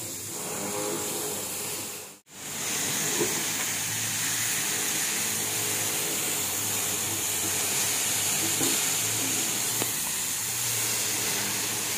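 Pineapple chunks and sugar sizzling in a hot frying pan, a steady hiss that breaks off briefly about two seconds in.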